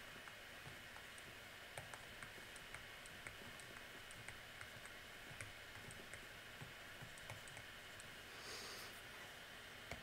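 Faint, irregular clicks and taps of a stylus on a tablet screen during handwriting, with a brief soft rustle near the end.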